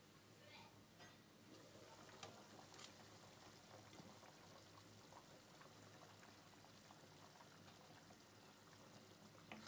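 Faint bubbling of duck curry simmering in an open pot, with scattered small pops. It grows a little louder after the first second and a half.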